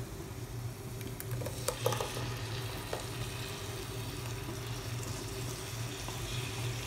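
A purée poured into a hot pressure cooker of fried onions and spices, sizzling faintly, with a few short clicks in the first three seconds as a wooden spatula scrapes it out of a glass dish. A steady low hum runs underneath.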